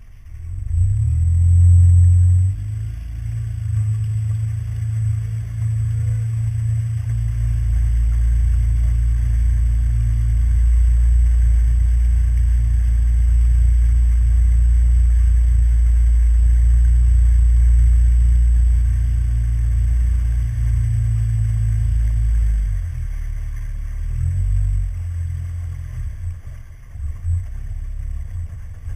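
CMB91RS nitro methanol engine of an RC offshore race boat running at low revs, heard muffled and close, as a low steady rumble. It is loudest in the first couple of seconds and turns uneven after about 22 seconds.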